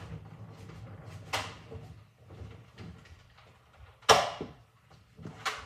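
Three short, sharp knocks, the loudest about four seconds in, over a low background rumble.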